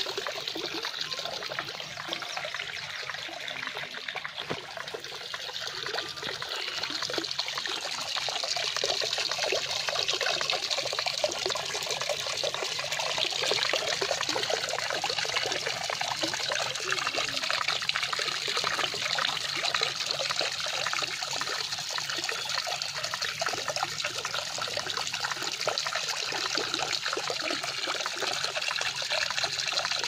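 A jet of water from a PVC pipe pouring and splashing steadily into a water-filled fountain basin. It is a little quieter for a few seconds near the start.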